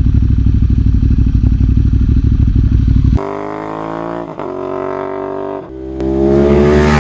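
Motorcycle engine: a low, fast throbbing pulse for about three seconds, then an abrupt cut to the engine pulling hard, its pitch climbing with two brief dips where the rider changes gear.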